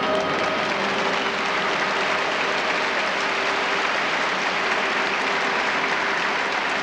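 Theatre audience applauding steadily, starting as the orchestra stops at the beginning.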